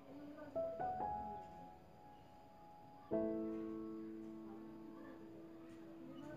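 Soft background piano music: a few notes struck near the start, then a chord about three seconds in, each left to ring out and fade.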